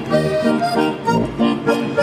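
German folk dance music, with chords pulsing in a steady, quick rhythm.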